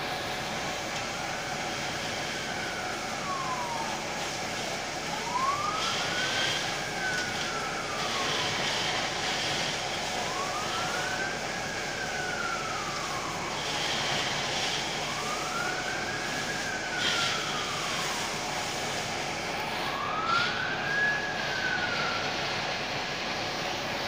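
Emergency-vehicle siren in a slow wail, rising and falling five times, each sweep taking four to five seconds, over a steady background noise.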